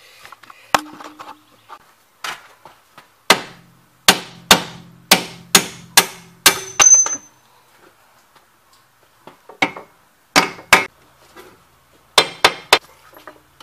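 Hammer striking steel at the rear strut's lower mount on a Chevrolet Lumina: sharp blows with a short ring after each, coming in uneven bursts. The longest, hardest run falls in the middle, about two blows a second. It is work to knock the strut-to-knuckle bolt free.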